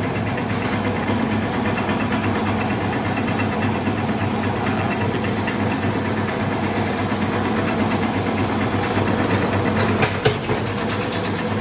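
Electric bread slicer running steadily, its motor and reciprocating blade frame making a continuous mechanical hum while a loaf of white bread is pushed through the blades. Two short sharp knocks sound about ten seconds in.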